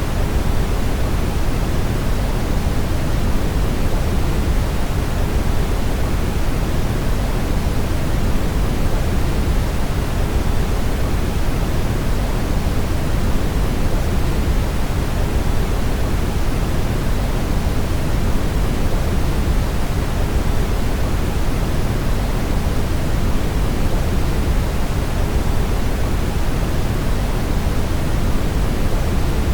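Steady brown noise: an even, unbroken rushing hiss, strongest in the low end and fading toward the highs, with no change in level.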